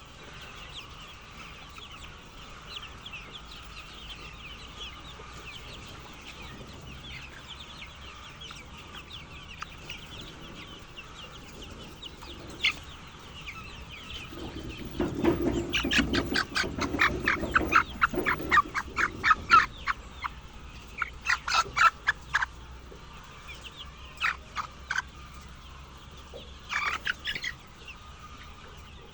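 A flock of chickens clucking and chirping steadily. About halfway through, one bird nearby breaks into a loud, rapid run of clucks lasting several seconds, followed by a few shorter bursts of clucks.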